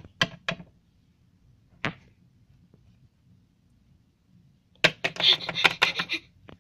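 Handling noise from the camera and toys being moved: a few sharp clicks at the start and one more about two seconds in, then a loud burst of rapid clicking and rattling lasting over a second near the end.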